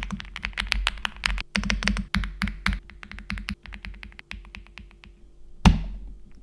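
Fast typing on a Wave 75 Pro mechanical keyboard with Kailh switches and no dampening foam inside the case: bare, unmuffled key clacks. They come densely for about three seconds, then thin out. A brief louder noise follows near the end.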